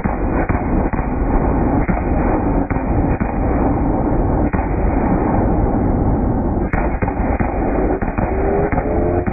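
Fireworks finale: a rapid, unbroken barrage of aerial shells bursting, with many sharp bangs overlapping in a continuous rumble and crackle.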